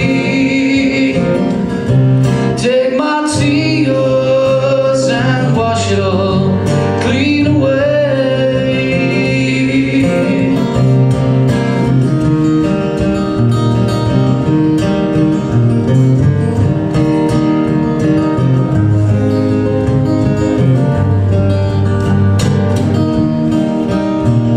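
A man singing a folk song to his own acoustic guitar, his voice wavering with vibrato. About ten seconds in the singing stops and the guitar plays on alone.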